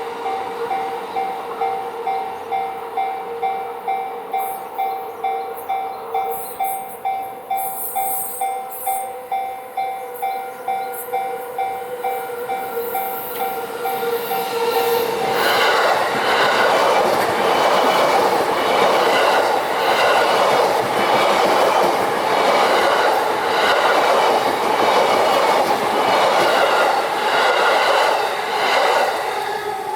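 Japanese level-crossing warning bell ringing about twice a second on two alternating tones. About fifteen seconds in, a JR Yamanote Line train passes over the crossing. Its louder running noise and regular wheel clatter drown the bell until just before the end, when the bell is heard again.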